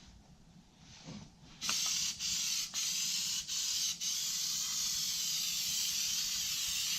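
Aerosol can of spray adhesive hissing as glue is sprayed onto carpet: a few short bursts starting about two seconds in, then one long steady spray.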